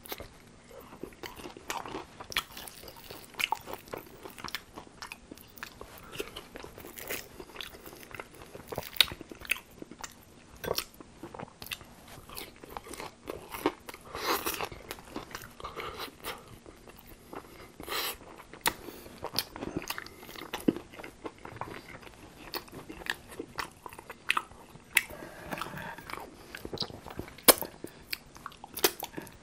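Close-up biting and chewing of crispy tempura-battered fried chicken wings: irregular crunches of the fried batter with mouth chewing between them, a few crunches much sharper than the rest.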